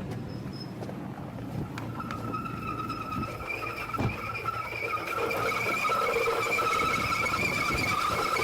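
Car engine running with its alternator drive belt squealing: a steady high-pitched whistle that sets in about two seconds in and grows louder. The squeal is the sign of the belt slipping on its pulleys.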